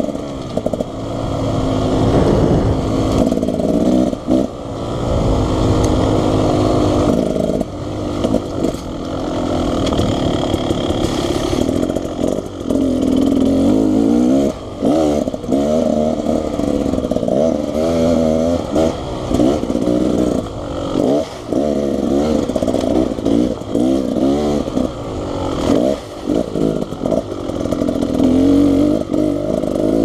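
Two-stroke engine of a 2019 Beta Xtrainer dirt bike being ridden, its pitch rising and falling with the throttle and dropping briefly many times as the throttle is rolled off.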